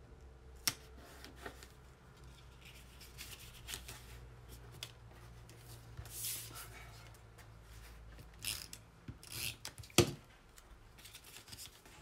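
Green cardstock being handled, folded and creased by hand: quiet paper rustling and rubbing with scattered light clicks, the sharpest click about ten seconds in.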